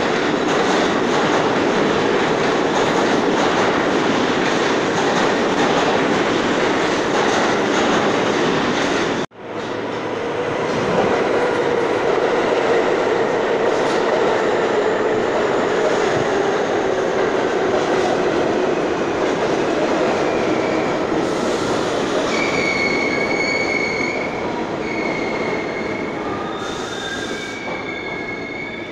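New York City Subway trains running through the station: first one passing on the far track, then, after a cut about nine seconds in, one moving along the platform track close by. Over the last several seconds its wheels squeal in steady high tones as the overall rumble eases off.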